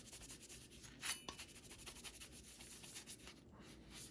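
Faint rubbing and scratching of a paper towel wiping old thermal paste off a CPU part, with a slightly louder scrape about a second in.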